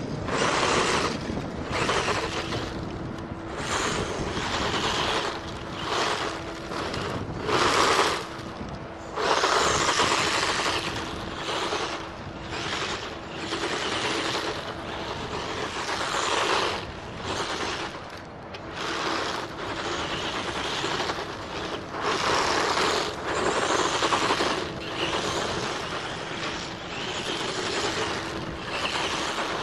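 Vintage Tamiya Hornet electric RC buggy driving on gravel, its motor and gears whining and its tyres scrubbing on the grit. The sound swells and fades every second or two as it speeds up and slows.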